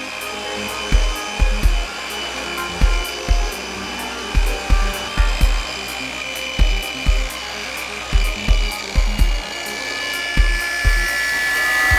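Background music with a steady kick-drum beat and ticking hi-hat, over the steady high whine of an electric sander running on floorboards.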